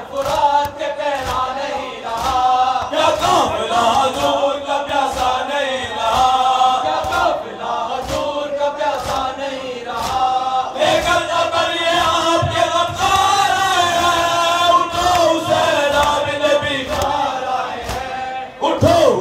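A group of men chanting a noha, a Shia elegy, in unison through a microphone, with a steady beat of hands striking chests (matam) under the chant.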